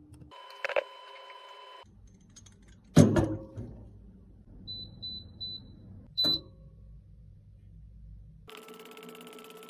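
A sharp knock about three seconds in, then an appliance control panel beeps three times in quick succession and once more with a click. Near the end a steady electrical hum comes on.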